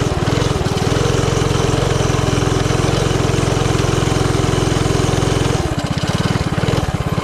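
Tillotson 212cc single-cylinder four-stroke engine on a mini bike running steadily under throttle during a ride. About five and a half seconds in, the steady engine note breaks up and wavers before settling again.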